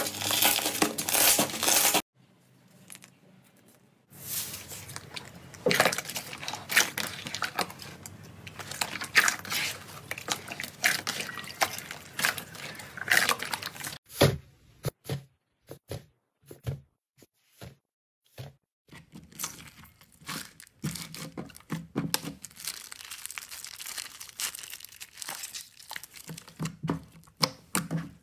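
Hands squeezing, stretching and poking slime: dense runs of sticky crackles, pops and squelches. There is a pause about two seconds in, and sparser single pops in the middle.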